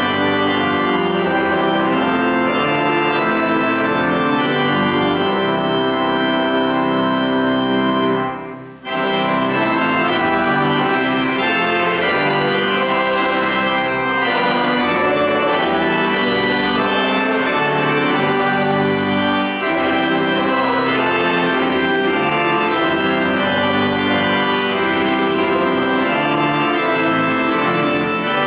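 Church organ playing held chords, with a brief break about eight and a half seconds in before it carries on.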